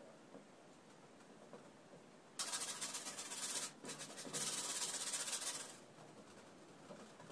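Stiff bristle paint brush scrubbing rapidly on canvas in quick short strokes, pausing briefly in the middle, as mist is worked in at the foot of a painted waterfall.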